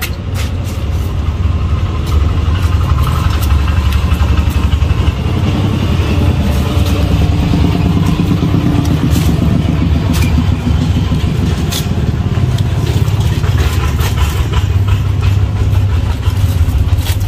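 An engine idling steadily, a low, even rumble, with a few faint clicks on top.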